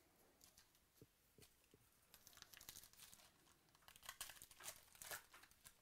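Faint crinkling and tearing of a foil trading-card pack wrapper being ripped open by hand, after a couple of light knocks; the crackling comes in a dense run over the last few seconds.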